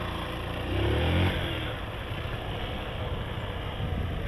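Small motorcycle engine riding at low speed. Its pitch rises briefly about a second in as the throttle opens, then it settles to a steady low run.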